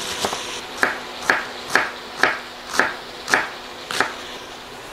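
Kitchen knife slicing green cabbage thin on a wooden cutting board: seven short cuts, about two a second, starting nearly a second in.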